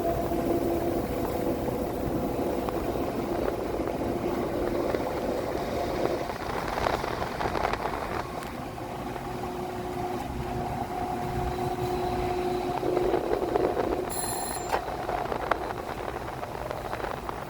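Train passing, with a steady rumble and a hum held on a few steady pitches that shift about six seconds in. A brief high-pitched ring sounds near the end.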